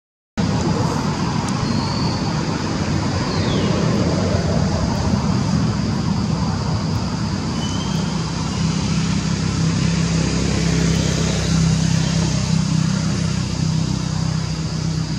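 Steady, loud running of a motor-vehicle engine or nearby traffic, a low hum under a noisy hiss, with a brief cut-out right at the start. A few faint high chirps come through over it.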